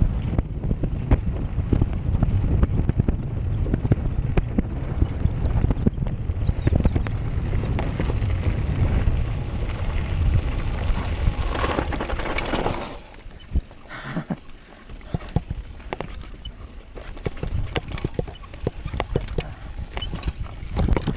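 Mountain bike riding fast downhill: tyres rolling over gravel and the bike rattling and knocking over bumps, with wind rushing over the microphone. About thirteen seconds in it gets quieter, leaving softer rolling noise and scattered knocks.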